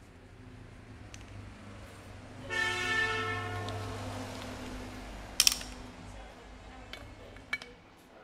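HYTORC hydraulic torque-wrench pump running with a low hum. About two and a half seconds in, a loud, steady pitched whine starts and slowly fades over the next few seconds. A single sharp metallic click comes about five and a half seconds in.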